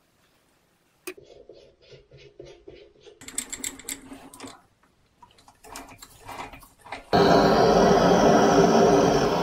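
Light metallic clicks and rattles as a brass fitting is handled and set into a lathe chuck. About seven seconds in, a handheld gas torch lights with a sudden, loud, steady hiss of burning gas, heating the brass fitting for soldering.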